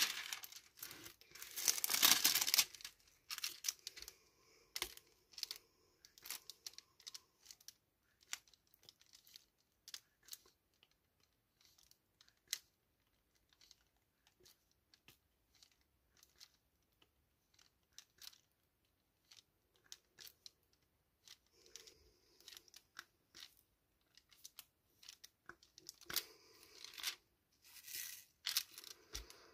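Diamond painting being worked by hand. The plastic film over the canvas crinkles in two louder stretches, about a second in and again near the end. In between come scattered small clicks as the drill pen taps resin drills into place.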